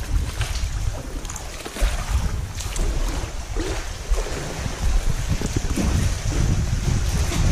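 Sea water sloshing and slapping irregularly against rock walls around a sea kayak, with wind buffeting the microphone as a steady low rumble.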